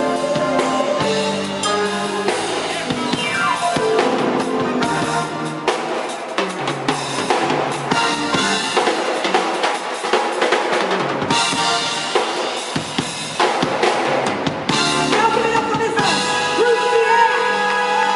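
Live band playing, the drum kit loud in front with many sharp snare and bass-drum hits, over held keyboard notes.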